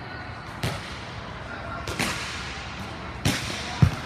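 Volleyballs being struck hard in a defensive digging drill: four sharp smacks, the loudest and heaviest near the end as the defender dives for the ball, echoing in a large indoor gym.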